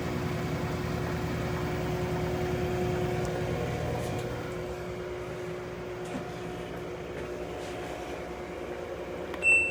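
LG washing machine running in diagnostic test mode: a steady mechanical hum with a low rumble that eases about four seconds in. A short electronic beep from its control panel comes near the end.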